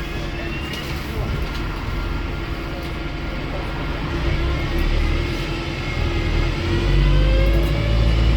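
Wrightbus StreetDeck HEV double-decker bus's Mercedes-Benz OM934 four-cylinder diesel running steadily with thin whines, then growing louder with whines rising in pitch over the last few seconds as the bus accelerates.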